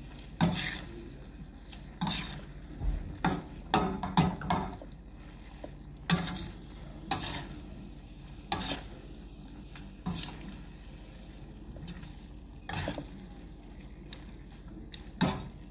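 Metal tongs tossing egg noodles and vegetables in a stainless steel pan, clinking against the pan a dozen or so times at irregular intervals, over a faint steady frying sizzle.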